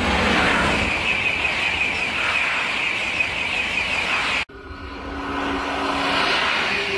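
High-speed train passing close at speed, a loud steady rush of wheels and air. It cuts off abruptly about four and a half seconds in. Another high-speed train is then heard approaching, growing louder, with a steady hum.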